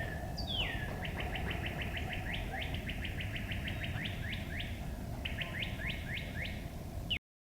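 A bird's whinny-like call: two high slurred whistles falling in pitch, then a fast run of short, sharply descending chirps, about seven to eight a second, that pauses briefly and resumes. A steady low outdoor hiss lies underneath, and the recording cuts off just before the end.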